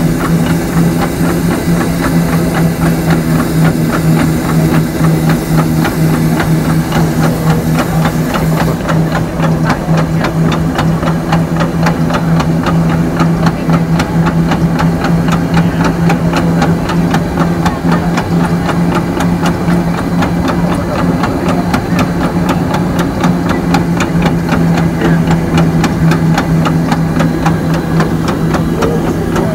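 Vintage car engine idling steadily, with a strong low hum and a fast, even mechanical clatter. A high hiss over it stops about nine seconds in.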